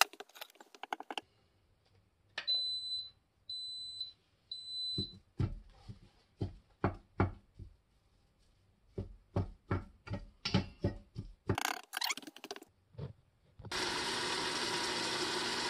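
Instant Pot control panel beeping three times, each beep short and high-pitched, while the cooker is set to sauté. Scattered knocks and clatters follow as the stainless inner pot is handled. From near the end comes a steady sizzle of ground beef browning in the pot.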